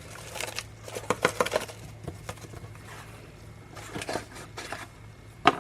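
Brown gravy mix packet being handled and opened: runs of crinkling and ticking, with one sharp click near the end.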